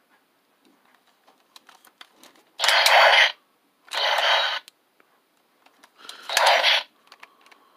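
Power Rangers Beast X Morpher toy handled: light plastic clicks and three short rasping bursts, each under a second, about a second or two apart.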